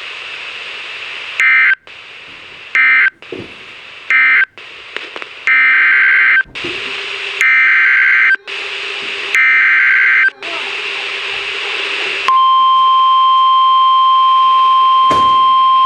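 Emergency Alert System data bursts over FM radio: three short buzzing SAME end-of-message bursts, then three longer SAME header bursts announcing a new alert. About twelve seconds in, the steady NOAA Weather Radio 1050 Hz warning alarm tone starts and holds.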